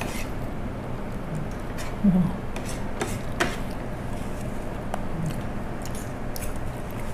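Spoons and forks clicking now and then against plates and bowls while people eat, over a steady low room hum, with one short murmur about two seconds in.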